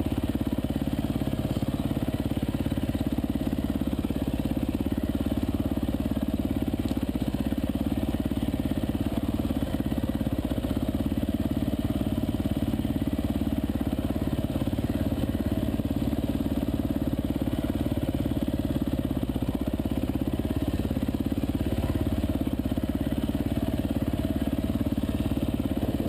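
Off-road dirt bike engine running steadily at low revs while riding a trail, with an even, fast firing pulse and no big revs.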